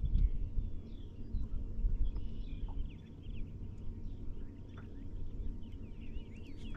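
Birds calling and chirping, many short rising and falling calls overlapping one another, over a low, uneven rumble.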